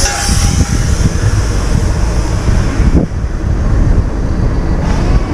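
Wind buffeting the microphone while riding a bicycle along a road: a loud, low rumble.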